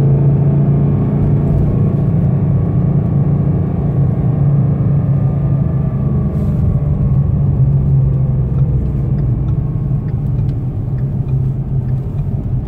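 Car engine and road drone heard from inside the cabin while driving, a steady low hum whose pitch drifts slowly down. Under it runs the warm engine's rpm-linked rubbing noise, like a fan rubbing or hitting something, still present but fainter than when cold.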